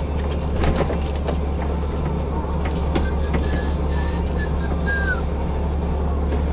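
Renault Magnum lorry's diesel engine running steadily while driving, a constant low drone with scattered clicks and rattles and a faint squeak about three seconds in.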